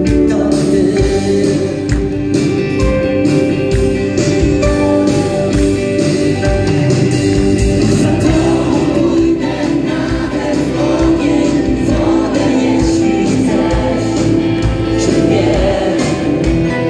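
A live rock band playing: a singer over electric guitars, bass, keyboards and a steady drum beat, with a backing choir.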